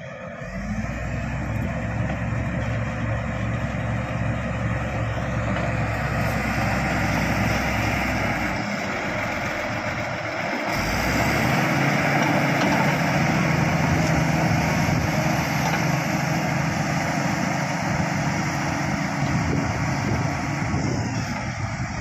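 Shantui crawler bulldozer's diesel engine running at working revs as the machine pushes soil. The engine picks up about half a second in, its note dips and shifts around the middle, then holds steady again.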